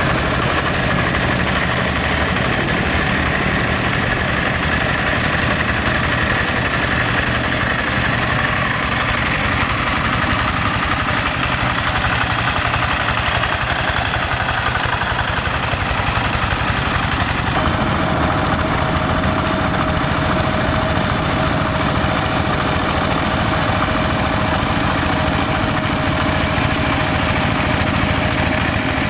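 Two-wheel hand tractor's single-cylinder diesel engine running steadily while ploughing through wet paddy mud. About two-thirds of the way through the sound changes, and a steady high whine joins the engine.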